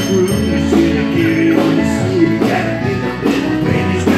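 Live band playing an up-tempo boogie-woogie rock-and-roll Christmas song, led by electric guitar with a steady beat.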